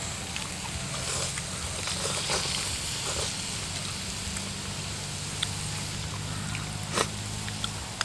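Eating sounds: noodles slurped and chewed, with light clicks of chopsticks against bowls and the pan and one sharper clack about seven seconds in, over a steady low hum.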